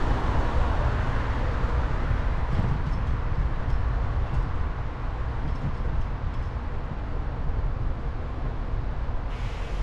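Wind rumbling steadily on the microphone of a bicycle-mounted camera, mixed with the bicycle's road noise and street traffic; a little louder near the start as a van passes alongside.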